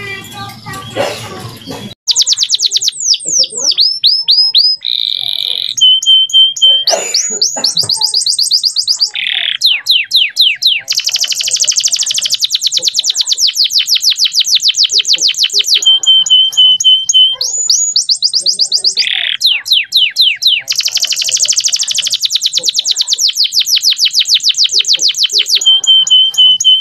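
Male canary singing loud, fast trills of repeated notes mixed with short steady whistles, starting about two seconds in after a brief muddled stretch.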